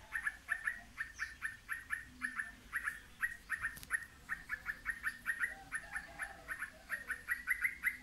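A small bird chirping rapidly and without a break, about five short, sharp chirps a second, at its nest.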